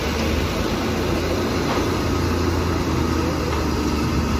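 Truck engine of a fuel tanker running as the truck pulls slowly forward, a steady low hum.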